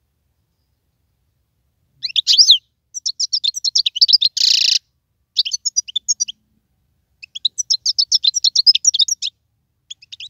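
European goldfinch singing: rapid, twittering high phrases in several bursts, starting about two seconds in, with one short harsh buzzy note in the middle.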